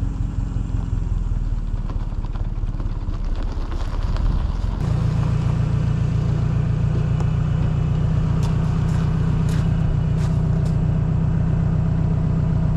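Forklift engine running steadily. Its note shifts and grows louder about five seconds in, and a few light clanks come near the middle.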